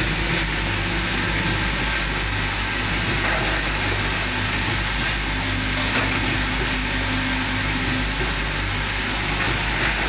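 Automatic bottle filling line running: a steady mechanical hum and hiss, with light clicks from plastic bottles jostling on the conveyor.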